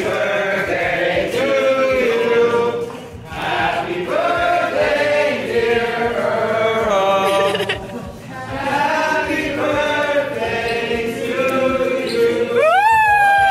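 A room full of people singing a song together in unison, in phrases with short breaks between them. Near the end one voice slides up into a held high note.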